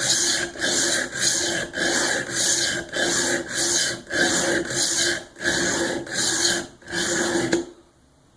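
Cold Steel SRK's VG-1 steel blade stroked back and forth on the Work Sharp Guided Sharpening System's abrasive plate, a steady rasping scrape at about one and a half strokes a second that stops near the end. The strokes raise a burr on the second side of the edge.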